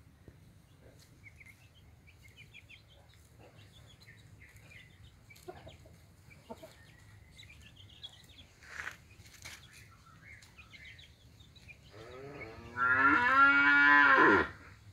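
A kampung rooster crowing once, a long call of about two seconds near the end, rising at first and dropping off as it stops. Faint bird chirps come before it.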